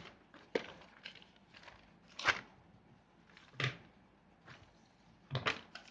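Paper notebook pages being turned and the notebook handled: a series of short rustles and light knocks, the loudest about two seconds in, with a quick cluster of them near the end.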